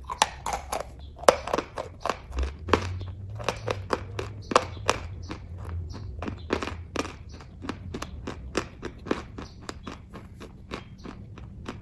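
Chewing kaju katli (soft cashew fudge) close to the microphone: a steady run of sharp, irregular mouth clicks and smacks, a few each second.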